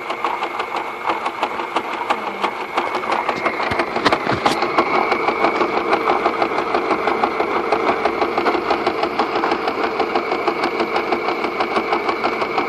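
Portable electric sewing machine stitching jute webbing onto fabric: the motor whines steadily under a rapid, even clatter of needle strokes, getting a little louder about three to four seconds in.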